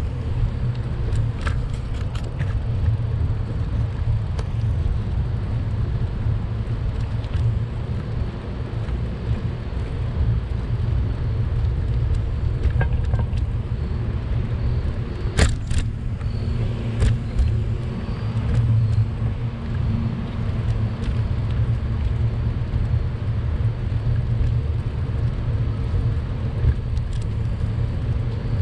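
Steady low rumble of road and wind noise on a bicycle ride along a city road, with scattered sharp clicks and rattles; the loudest is a double click about halfway through.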